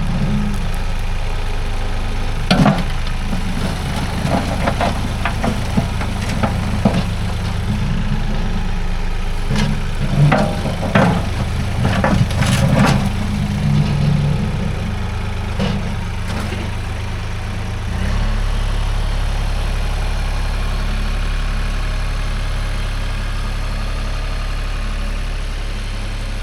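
A vehicle engine running steadily while driving over rough ground, with irregular clunks and rattles through the first two-thirds. About 18 seconds in, the engine note drops to a lower, steadier hum.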